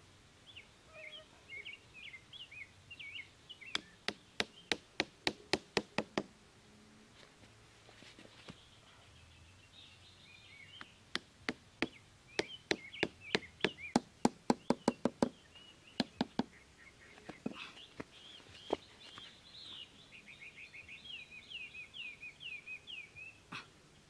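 Stakes being hammered into sandy ground with a hatchet: two runs of sharp, evenly spaced knocks at about four a second, the second one longer, then a few single knocks. Small birds chirp in quick series between the runs of knocks.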